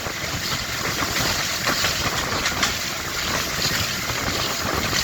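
Diesel locomotive engine running, a steady noisy sound with wind on the microphone.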